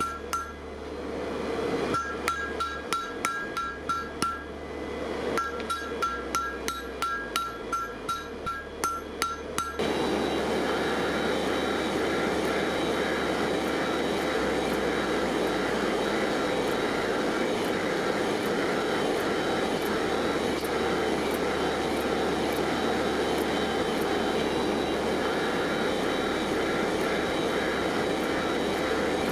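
Hammer striking steel on an anvil, about three ringing blows a second. About ten seconds in, this cuts off suddenly and a steady, loud machine noise follows.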